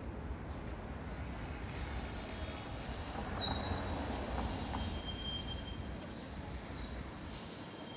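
City street ambience with a steady low rumble, swelling as a vehicle passes midway, with two brief high-pitched squeals near the middle.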